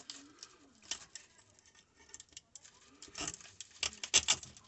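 Small clicks and scraping from hand-work with pliers on the fan's parts, with a quick run of sharp clicks about three seconds in.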